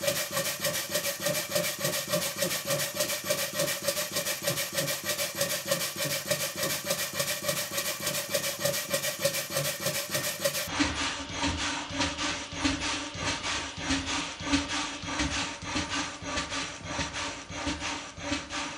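A 2 inch scale Fowler traction engine running steadily, its motion and exhaust making a rapid, even chuffing beat. About eleven seconds in the sound changes, with a lower steady hum under the same beat.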